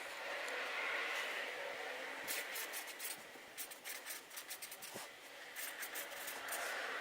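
A paper scorecard being handled: faint rustling and scratching, with two runs of small crisp clicks, the first a little after two seconds in and the second near the end.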